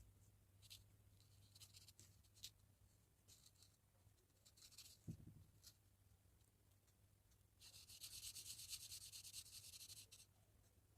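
Faint pen strokes on paper: short separate scratches, then about three seconds of quick back-and-forth scribbling, typical of colouring in, starting near the end.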